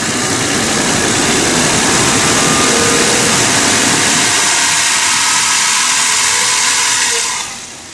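Mercedes-Benz ML320's M112 V6, cold, held at raised revs of around 2000 rpm, where its knock goes away; near the end the revs drop back toward idle.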